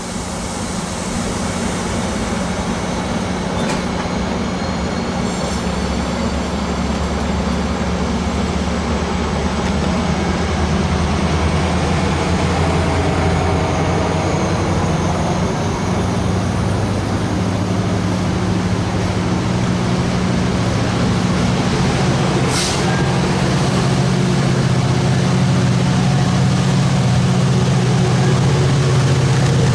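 Virginia Railway Express commuter train pulling out: stainless bilevel coaches rolling past, pushed by an MP36PH-3C diesel locomotive at the rear, whose steady engine drone grows louder as it nears. A single sharp click comes about two-thirds of the way through.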